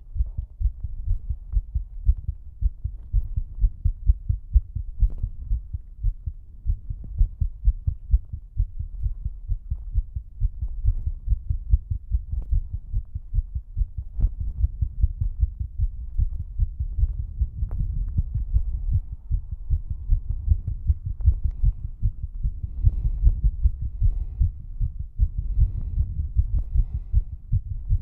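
A woman's heart beating fast after exercise: rapid, evenly spaced low thuds in a steady rhythm.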